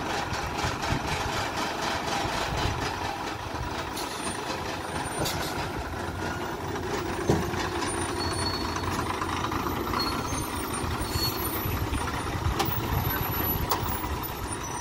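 Heavily loaded lorry's diesel engine running steadily under load as the lorry climbs round a hairpin bend. There is one sharp click about seven seconds in, and a few faint short beeps from about eight seconds in.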